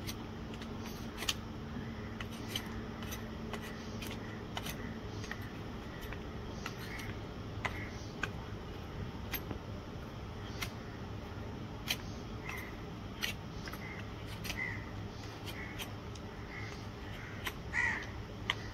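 Hoof paring knife cutting into a horse's hoof sole and frog: irregular sharp clicks and scrapes of the blade on horn, at a steady working pace.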